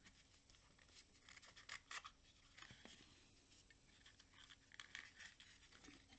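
Faint scraping and rustling of thick cardboard against an aluminium drink can as the can is pushed and twisted into the hole cut in a chipboard piece, a few brief scratches scattered through.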